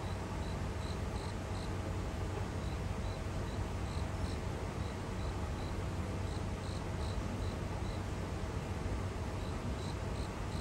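Crickets chirping: short high chirps repeating a few times a second in loose runs, over a steady low background hum.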